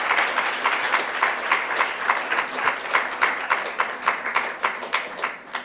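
Audience applauding: dense clapping from many hands that thins out and stops near the end.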